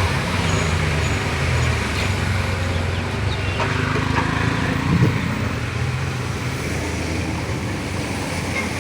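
A motor vehicle's engine running with a steady low hum under a constant wash of noise.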